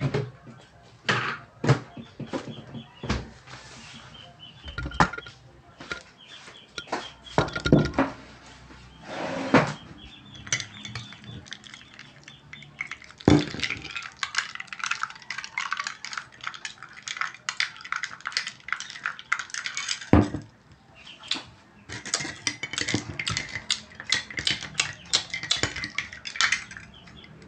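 Metal spoon stirring a drink in a ceramic mug, clinking rapidly against the sides through the second half. Before that, a few scattered knocks and clatters of kitchen things being handled.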